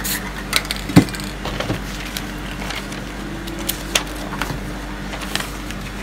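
Light knocks and clicks of a spray paint can being set down and magazine paper being handled, with one louder knock about a second in, over a steady low hum.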